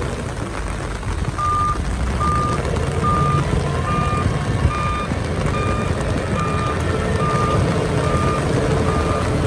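Reversing alarm on a heavy earthmoving machine, a dump truck or bulldozer, beeping steadily about once every 0.8 seconds from about a second and a half in. Its heavy engine runs under it throughout.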